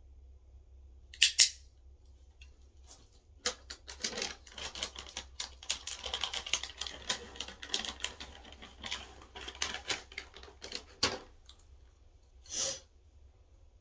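A sharp double click, then several seconds of rapid, irregular crunching clicks from a cat chewing a dry treat, with one more short burst near the end.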